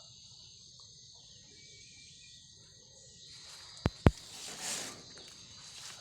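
Crickets chirring steadily in the background. About four seconds in come two sharp clicks close together, followed by a brief rustle.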